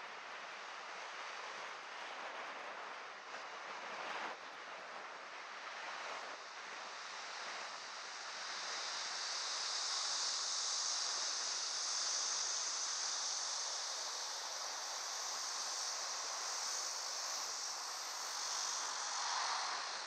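Steady rush of wind and road noise on a vehicle-mounted GoPro while driving, with no clear engine note. It grows louder and hissier about eight seconds in.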